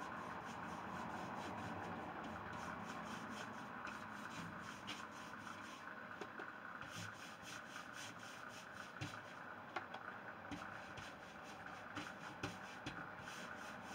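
Cloth rubbing Briwax over a stripped pine door panel in repeated back-and-forth strokes.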